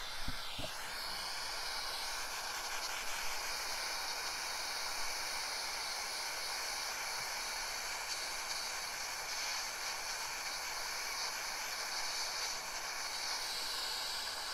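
Small pencil torch burning with a steady hiss, its flame held on a tractor radiator's tank to melt off old solder.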